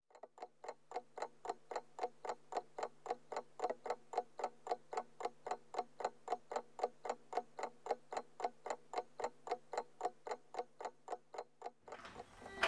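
Even, rapid ticking, about three and a half ticks a second, over a faint steady low hum; both stop shortly before the end.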